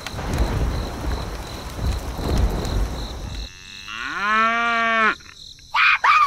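A low rumbling noise for about three seconds, then a cow mooing once: a long call that rises and then holds steady for about a second. Near the end comes a shorter, higher call that falls in pitch.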